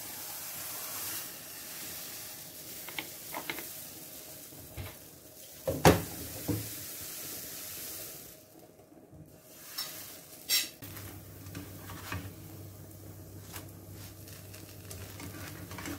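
Thin flour-and-milk batter sizzling in a hot nonstick frying pan, with a few sharp knocks of the jug and spatula against the pan, the loudest about six seconds in. A steady low hum comes in about eleven seconds in.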